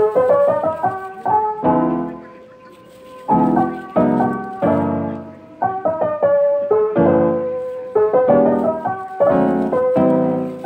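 Background music: a piano playing chords and a gentle melody.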